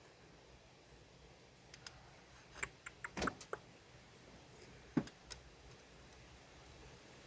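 Hand tools and metal parts clicking and clinking against each other in a short cluster, then one louder knock, while hose clamps and air-intake parts are refitted on a car engine.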